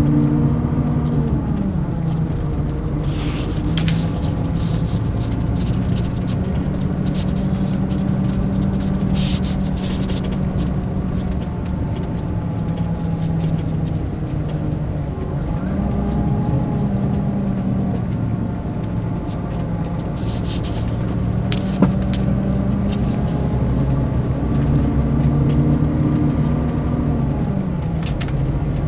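Diesel engine of a Mercedes-Benz O500 RSD BlueTec5 coach running, its engine speed falling near the start, rising and falling again midway and near the end. A few brief hisses and one sharp click are heard.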